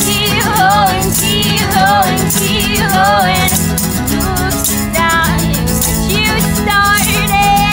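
Acoustic pop song played live: women singing lead and harmony over strummed acoustic guitars, with an egg shaker and tambourine keeping a steady rhythm.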